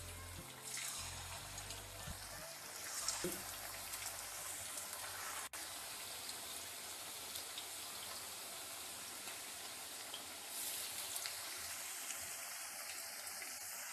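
Batter-coated chicken pieces deep-frying in hot oil in a kadai: a steady sizzling hiss of bubbling oil.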